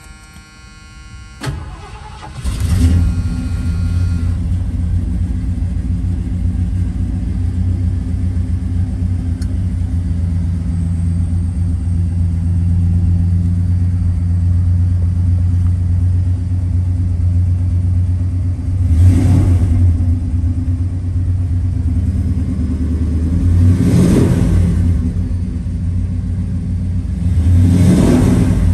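A 1978 Ford Ranchero GT's 400 cubic-inch V8, heard from inside the cab, is started. A brief steady tone sounds first; the engine catches about two and a half seconds in and settles into a steady idle. It is revved briefly three times in the second half.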